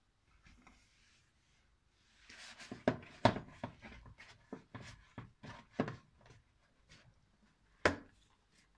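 Hands patting and pressing buttered dough on a metal baking tray: an irregular run of soft slaps and knocks for several seconds, then one sharper knock near the end.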